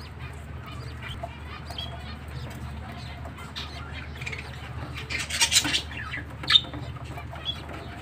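Small cage finches chirping and twittering now and then over a low steady hum, with a louder flurry of sharp chirps or wing flutter about five seconds in and a single sharp peep a second later.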